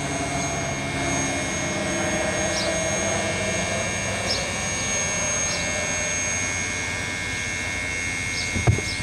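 Steam locomotive approaching slowly at low speed, a steady hissing rumble. A few sharp knocks come in near the end.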